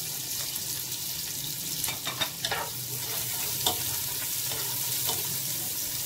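Chopped onions sautéing in hot oil in a nonstick pot: a steady sizzle while a spatula stirs them, with a few sharp scrapes and taps against the pot.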